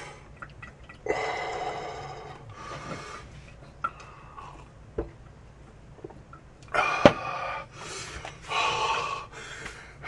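A person panting and gasping in heavy breaths through the mouth, the burn of hot dried jalapeño powder. A single sharp click about seven seconds in.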